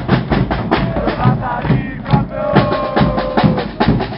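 A supporters' drum band beating bass drums and snares in a fast, even rhythm, with the crowd chanting over it; a long held note stands out about halfway through.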